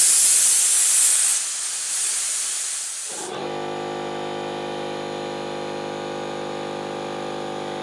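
Compressed air hissing loudly as the tank of a RIDGID Gen5X R0230 18V brushless cordless air compressor is drained; about three seconds in the hiss stops and the compressor kicks on, running with a steady, even hum at about 83 decibels.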